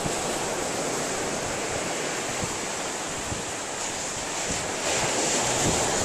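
Steady rush of ocean surf mixed with wind buffeting the microphone, swelling a little about five seconds in.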